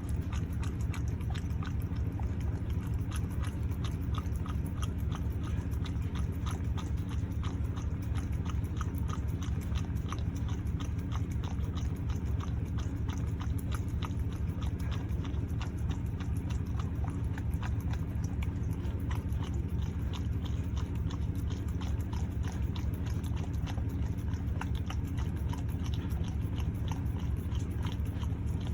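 A dog eagerly licking and chewing a pup cup, making rapid wet smacking and lapping clicks with no break, over a steady low hum.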